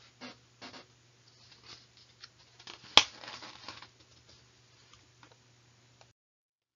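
Faint rustling and small clicks over a steady low hum, with one sharp, loud click about three seconds in. About six seconds in, everything cuts off to dead silence.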